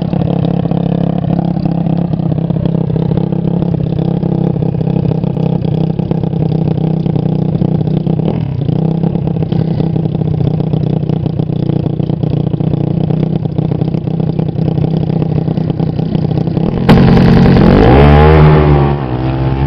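Motorcycle-engined drag trike, its stock naturally aspirated engine idling steadily at the starting line. About 17 seconds in it launches at full throttle: the engine gets suddenly much louder and the revs climb steeply, then drop back near the end.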